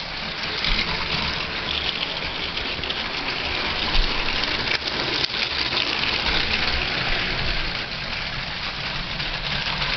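Two Lego electric trains running on plastic track: a steady whirring rattle of their small motors and wheels, with a few brief clicks around the middle.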